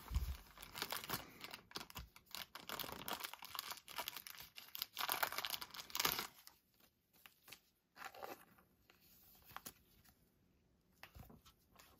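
Crinkling and rustling of thin plastic card sleeves and their resealable plastic bag as a trading card is slipped into a sleeve. It is busy for the first six seconds or so, then thins to a few faint rustles.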